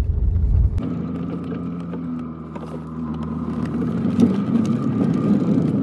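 A Nissan car heard from inside the cabin on a test drive, engine running over the road. A heavy low rumble drops away about a second in, leaving a steady engine hum with a faint high tone above it.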